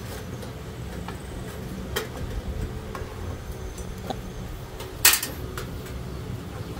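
Small metal clicks as a screwdriver backs screws out of the fuel pump mounting plate on a motorcycle fuel tank, with a louder clink about five seconds in, over a low steady hum.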